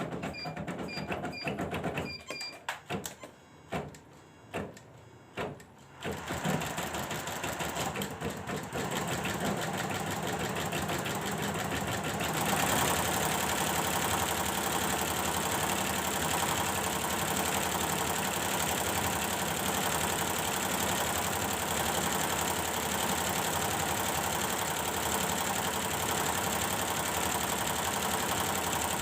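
Computerized embroidery machine on a test run after repair of its drive unit's power supply. It gives a few short beeps and starts and stops in short jogs for the first few seconds, then settles into continuous stitching that gets louder about twelve seconds in and holds steady.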